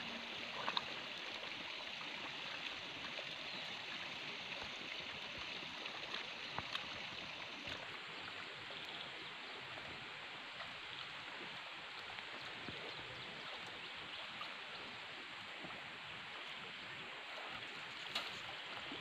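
Steady trickle of running water around a flooded rice paddy, with a few faint splashes as seedlings are pushed into the muddy water.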